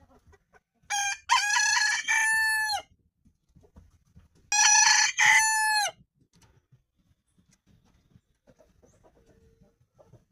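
Rooster crowing twice, about three seconds apart. Each crow is a short opening note followed by a long drawn-out call whose final note bends down in pitch as it ends.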